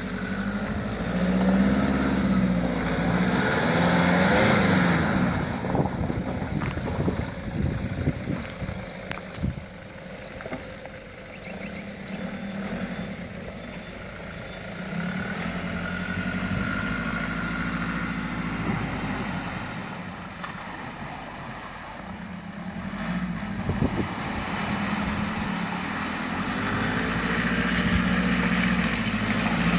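Nissan Patrol four-wheel drive's engine revving up and easing off in turns as it climbs a muddy, rutted track, with scattered knocks from the vehicle working over the ruts. It grows louder near the end as it comes closer.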